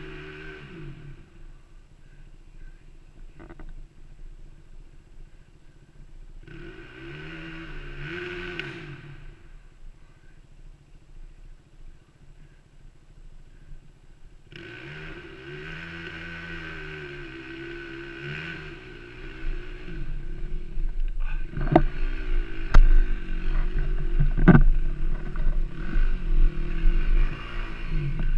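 Trail dirt bike climbing a hill at a distance, its engine revving up and down in bursts: briefly at the start, again for a couple of seconds, then for about four seconds. In the last third a louder low rumble sets in, with a few sharp knocks.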